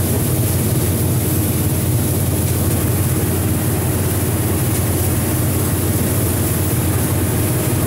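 Combine harvester running steadily while harvesting corn, heard from inside the cab: an even engine and machinery drone with a strong low hum.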